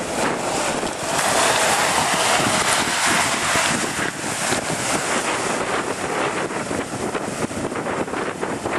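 Water rushing and splashing as a Mitsubishi Pajero SUV wades through a river ford, loudest in the first few seconds as it ploughs into the water. Wind buffets the microphone throughout.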